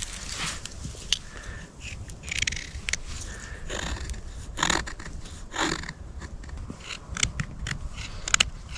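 Hand-lighting a fatwood campfire: a few short scraping strokes and scattered sharp clicks.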